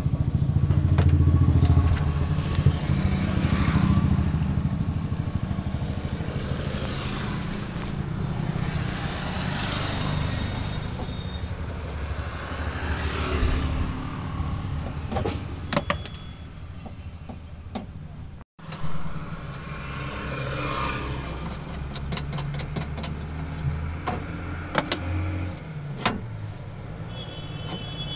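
Road traffic: vehicle engines running, swelling and fading as they pass, with a few small sharp clicks.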